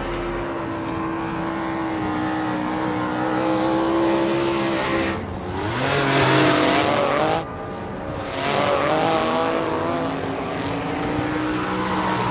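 Nitromethane-fuelled RC monster truck engine running at a high-pitched whine, its revs rising and falling as it drives, with a sudden drop about seven and a half seconds in.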